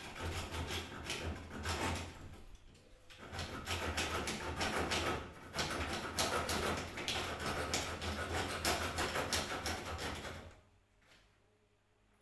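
Window being worked open, its frame scraping and rattling in two long stretches, with a short pause about three seconds in; the sound stops near the end.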